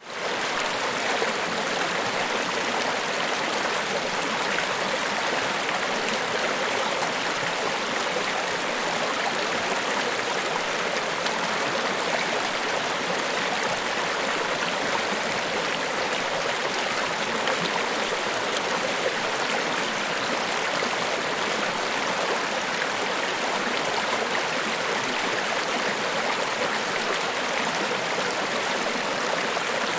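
Niagara Falls: a steady rush of falling water that fades in at the very start and then holds level, with no breaks.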